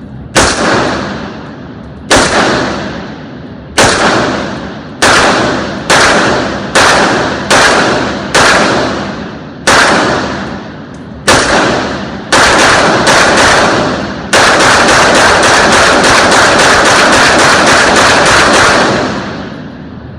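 AR-15 rifle being fired: single shots one to two seconds apart, coming faster after about twelve seconds, then a rapid string of shots lasting about five seconds near the end.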